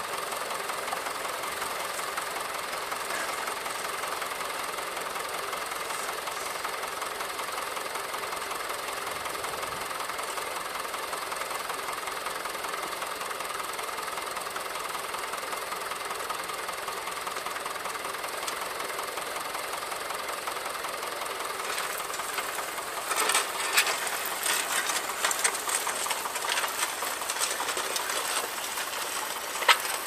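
Vintage tractor engine idling steadily with an even knocking beat. About three-quarters of the way through, louder, irregular clattering and crackling set in as the tractor moves off.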